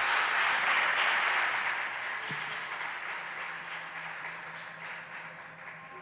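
Audience applauding, the clapping dying away gradually.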